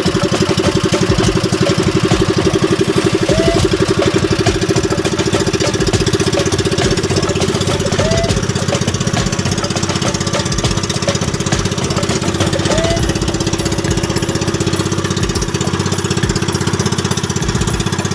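Small outrigger boat's engine running steadily under way, a fast even chugging heard from on board.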